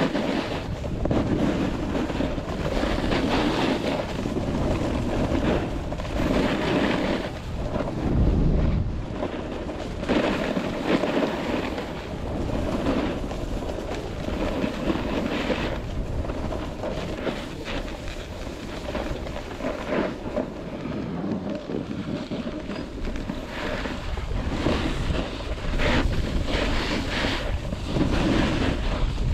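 Wind buffeting the microphone with the hiss and scrape of edges on snow during a fast downhill run, rising and falling every few seconds.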